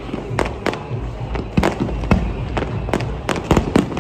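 Fireworks display going off: about a dozen sharp bangs and pops at irregular spacing over a continuous low rumble as comets and shells launch and burst.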